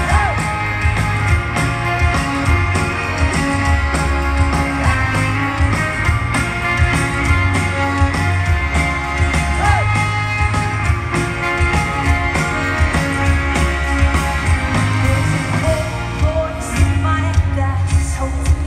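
A live rock band playing a full song, heard from the audience in a large hall: a steady drum and bass beat under guitars, with singing.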